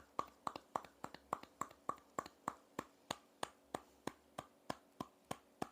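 Steady rhythmic patting on a person's upper back with both loosely clenched hands, about four hollow pats a second: the back-percussion technique used to ease coughing and tightness in the chest.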